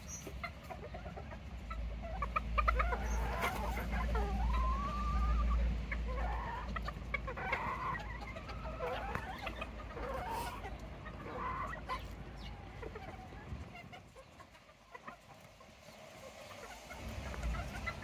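Bantam chickens clucking and calling: a run of short clucks with one longer call that rises and falls a few seconds in, dying away in the last few seconds. A low rumble underlies the first half.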